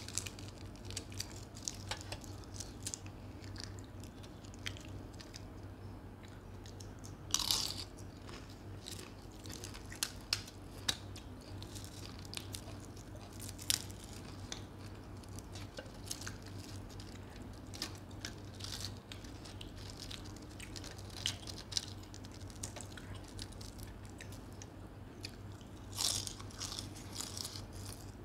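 Close-miked eating of puri and chicken curry by hand: steady chewing and biting with many short wet clicks and mouth sounds, louder about seven seconds in and near the end, over a low steady hum.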